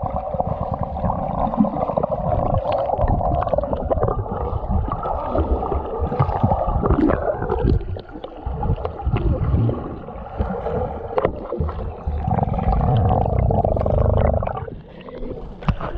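Muffled underwater sound picked up by a camera held beneath a pond's surface: a dense low rumbling and gurgling of moving water with scattered faint clicks, dipping briefly near the end.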